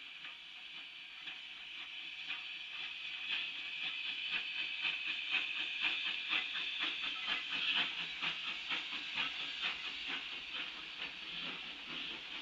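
Narrow-gauge steam locomotive No. 315 rolling slowly past with a string of gondolas: a steady hiss of steam over a run of clicks and knocks from the wheels and cars, growing louder as the train comes closer.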